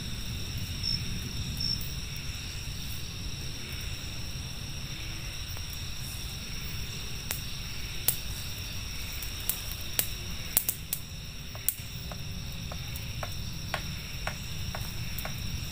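Insects, crickets or cicadas, keeping up a steady high-pitched shrill chorus over a constant low rumble. From about halfway through there is a scatter of sharp clicks and taps.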